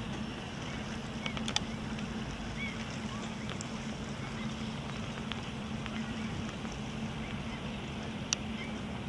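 Steady low motor hum, even throughout, with faint scattered high chirps and a couple of sharp clicks, one about a second and a half in and one near the end.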